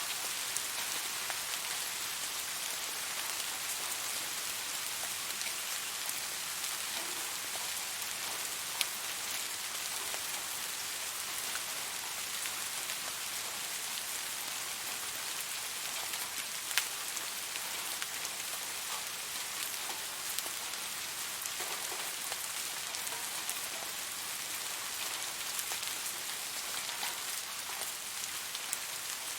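Steady rain, an even hiss with a few louder drops ticking now and then.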